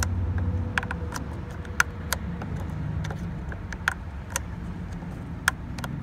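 Small irregular plastic clicks and taps of a flat screwdriver prying at the white locking tab of the ignition control module's wiring harness connector, about a dozen over a few seconds. A steady low hum runs underneath.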